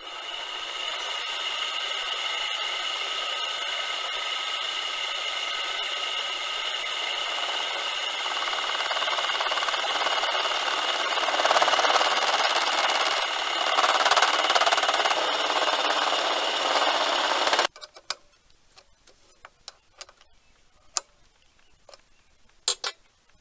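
Homemade mini lathe driven by a 24-volt motor, turning an aluminium bar with a cemented carbide cutter: a steady high whine under a harsh cutting noise that grows louder in the second half, with the tool chattering badly, which the builder puts down to play in the tool slide. The sound stops abruptly about 18 seconds in, leaving near quiet with a few light clicks.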